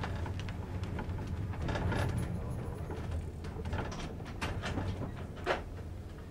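Passenger train running, heard from inside the carriage: a steady low rumble with scattered clicks and rattles, and a sharper knock about five and a half seconds in.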